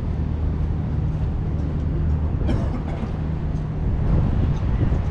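A steady low engine hum over a haze of street noise, with a few light ticks.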